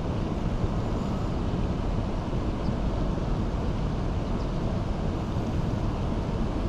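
Steady rushing rumble of water pouring out below a dam into its tailwater, even and unbroken.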